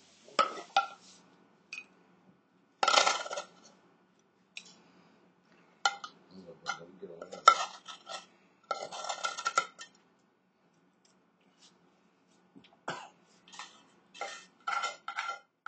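A metal utensil clinking and scraping against cookware in irregular bursts: short knocks with a slight ring, and a few longer scrapes about three seconds in and again around nine seconds.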